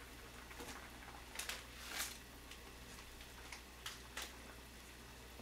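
A few short soft rustles and knocks, loudest about two seconds in, as a block of instant ramen noodles is put into a pot of simmering sausage stew and the plastic noodle packet is handled.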